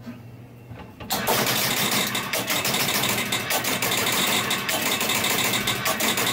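A 1976 Bally Captain Fantastic electromechanical pinball machine's score motor starts suddenly about a second in and keeps running, loud, with rapid clattering of relays and switches. It keeps running because a score reel is not coming fully to zero, which the owner puts down to contacts that may not be disengaging.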